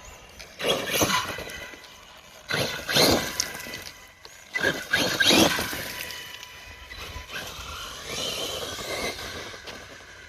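Axial RYFT RC rock bouncer's electric motor and drivetrain whining in three short, loud bursts of throttle, then a longer, softer run near the end.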